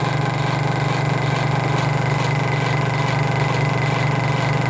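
Old scroll saw running with no workpiece, its arm driving a 360 spiral blade rapidly up and down in a newly fitted pinless blade mount. It makes a steady, loud hum with a fast, even rhythm from the blade strokes. This is a test run to see whether the unpinned blade stays clamped, and it holds without snapping.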